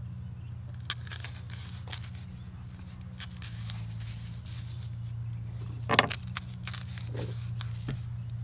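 A cleaver blade cutting slits into a whole peeled onion held in the hand: a few short crisp cuts and clicks, the sharpest about six seconds in, over a steady low hum.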